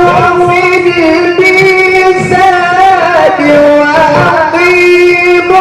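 Quran recitation in melodic tajweed style: one voice holding long, ornamented notes with small wavering turns. The pitch steps down for about a second around the middle, then rises back to the held note.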